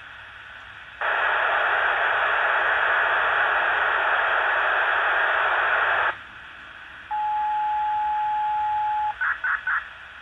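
Radio reception through a software-defined radio tuned to the municipal disaster-prevention radio channel on 68.805 MHz. About a second in, loud static hiss starts and cuts off suddenly some five seconds later. A steady beep then sounds for about two seconds, followed by three quick higher tones.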